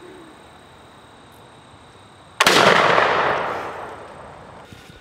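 Flintlock black-powder fowler firing at a clay target: one sudden loud report about two and a half seconds in, trailing off over about a second and a half.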